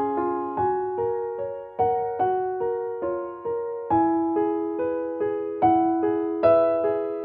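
Background music: a gentle piano melody, notes struck at an even, unhurried pace and left to ring.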